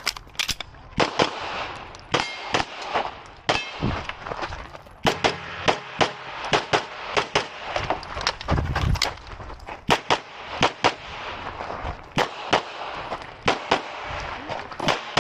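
Glock 34 9mm pistol fired rapidly through a competition stage: many sharp shots, mostly in quick pairs about a third of a second apart, with short pauses between strings.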